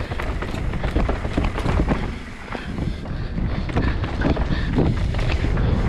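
Wind buffeting a helmet-mounted camera's microphone as a GT Fury Pro downhill mountain bike descends a dirt and gravel trail at speed, with its tyres rolling and the bike clattering in many quick knocks and rattles over the bumps. The rush eases briefly about two seconds in.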